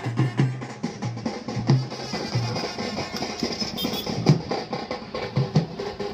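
Drumming: rapid, dense drum strokes with rolls and deep beats in an unbroken rhythm.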